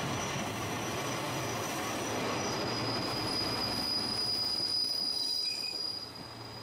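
JR Shikoku diesel railcar passing close by: engine and wheels running over the rails with a steady high-pitched wheel squeal, the noise dropping away about six seconds in as the train goes past.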